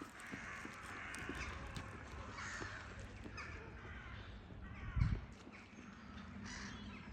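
Crows cawing in the distance, a series of separate caws spread over several seconds, with a low thump about five seconds in.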